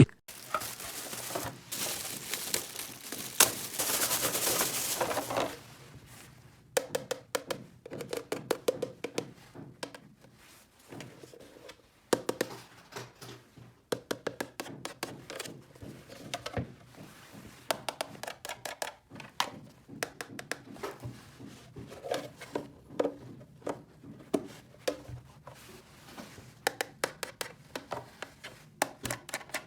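Crinkling packaging rustles for the first six seconds or so. It is followed by many small, sharp clicks and taps, irregularly spaced, as light plastic toy pieces are handled and set down.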